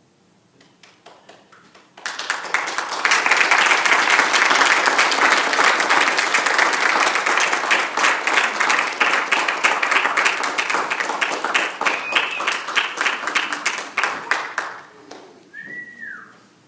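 Audience applauding. It starts suddenly about two seconds in, stays full for about ten seconds, then thins to scattered claps and dies away near the end.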